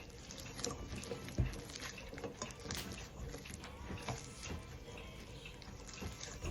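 Sticky bread dough being worked by hand, giving irregular wet squelches and slaps, with one heavier thump about a second and a half in.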